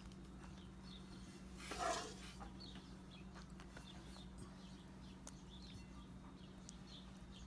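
Quiet sounds of tomato sauce being spooned over lasagna noodles in a foil pan, with one brief squelch or scrape about two seconds in, over a steady low hum.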